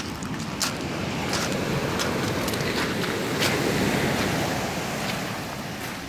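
Surf washing up a pebble beach, swelling to its loudest a little past the middle and then easing off. A few sharp crunching steps on the pebbles come through, mostly in the first seconds.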